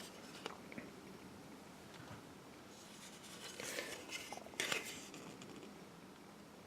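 Faint rustling and light scratchy clicks of plastic model-kit parts being handled, in a couple of short bursts past the halfway point.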